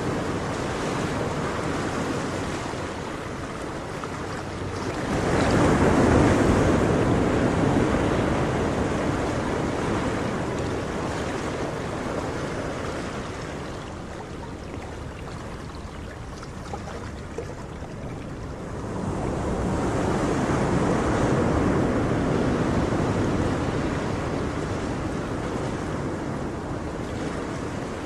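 Ocean surf washing on a shore: a steady rushing hiss that swells as a wave comes in about five seconds in and again about nineteen seconds in, ebbing between.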